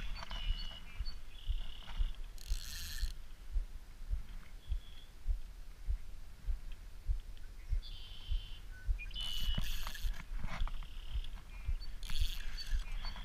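Fishing reel ratcheting and whirring in a few short bursts while a hooked carp is played on the line, over irregular low bumps from the rod and reel being handled.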